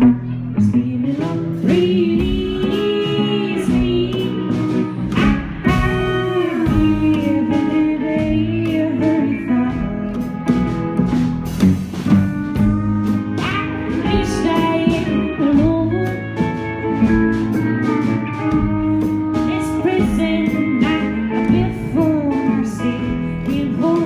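A live duo playing a song: a hollow-body electric guitar and a plucked upright bass, with a woman singing.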